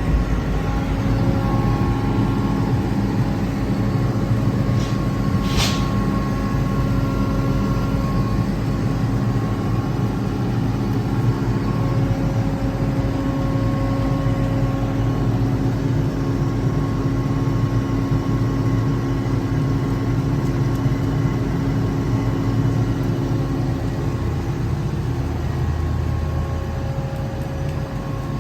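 Kaeser ASK 28 T 15 kW rotary screw air compressor running steadily under load, a continuous hum with several fixed tones, as it pumps an air receiver up toward 8 bar. A brief high-pitched hiss comes about five and a half seconds in.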